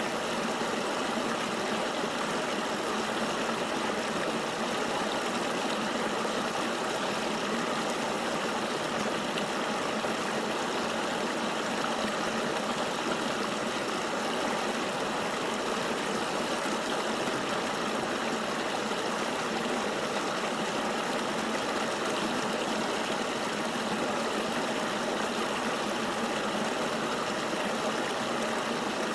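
River water flowing steadily: an even, unbroken rushing with no single splashes or drops standing out.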